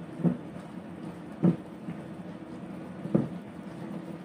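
A plastic spatula stirring leafy greens and broth in a frying pan, with three short louder scrapes against the pan about a second and a half apart, over a steady background hum.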